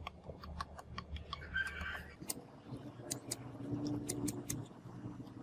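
Scattered small clicks and taps as hands handle a lighter and press on the vinyl-wrapped wooden speaker box, with a short low hum about four seconds in.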